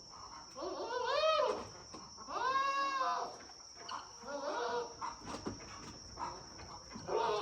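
A goat bleating several times, each bleat drawn out and rising then falling in pitch.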